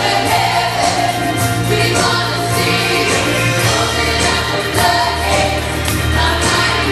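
Mixed church choir singing a contemporary worship song with a live band, the voices held over steady bass notes and drums.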